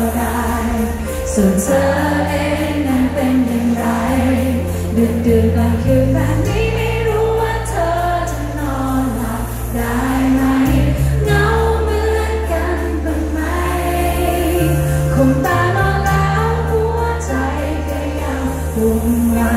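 Live pop band performance heard through a large concert PA from within the audience: a woman sings the lead melody over sustained bass notes and electric guitar.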